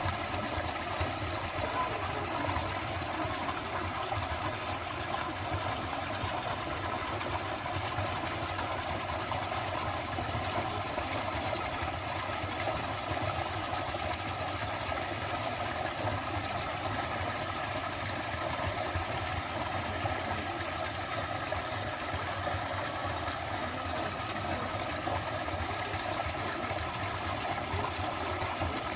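A dense chorus of frogs calling together in a steady, rapid, pulsing drone.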